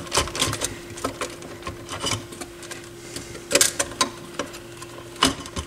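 Hands handling a circuit board and its wiring inside a stereo receiver's metal chassis: irregular clicks, taps and small knocks, the loudest a little past halfway and near the end. A faint steady hum runs underneath.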